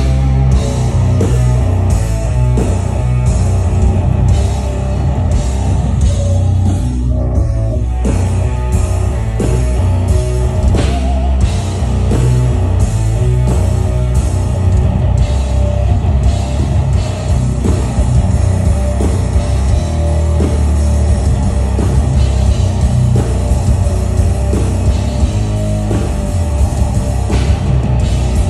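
Death metal band playing live through a festival PA: heavily distorted guitars and bass with fast, steady drumming, loud and filling the whole range.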